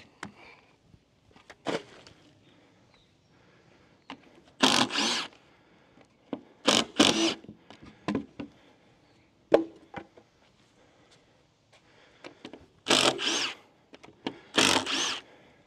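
Cordless drill backing screws out of lumber. It runs in short bursts of about half a second, mostly two at a time, with a few knocks of handling in between.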